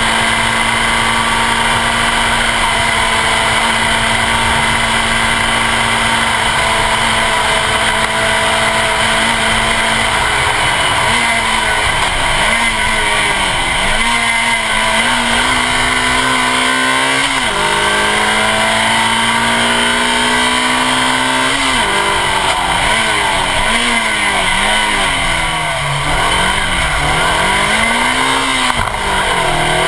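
Suzuki Swift Sport rally car's 1.6-litre four-cylinder engine at high revs on a gravel stage, heard from the front bumper over a steady rush of tyre and wind noise. The revs hold steady for about ten seconds, then swing up and down with gear changes and lifts, dropping lowest around the middle and again near the end.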